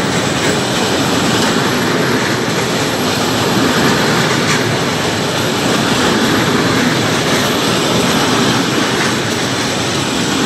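Freight train of loaded flat wagons rolling past at speed: a loud, steady rush of steel wheels on the rails.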